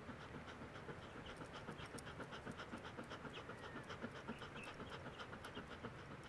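A dog panting quickly and evenly, several short breaths a second.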